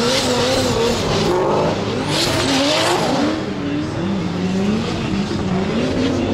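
Drift car's engine revving up and down as it slides through a corner, with tyre noise beneath, the pitch climbing and dropping several times. The hiss swells about two seconds in.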